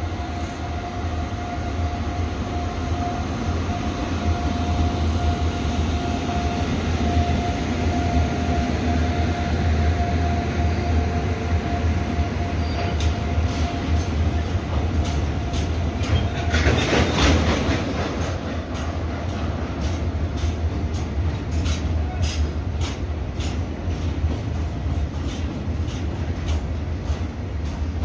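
Freight train of tank wagons hauled by an electric locomotive rolling past with a steady low rumble. A thin steady whine runs through the first half, there is a louder rush of noise about 17 seconds in, and through the second half the wheels click over rail joints in a quick, even rhythm.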